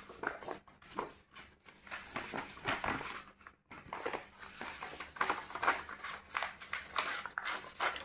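Sheets of stiff invitation paper and card rustling and crackling in short, irregular bursts as they are pulled out and leafed through by hand.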